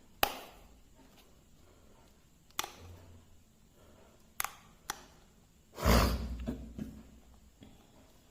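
Sharp plastic clicks from a foldable hair dryer being handled, its handle folded and unfolded. There are four single clicks, then a louder knock with a brief rustle about six seconds in. The dryer is switched off.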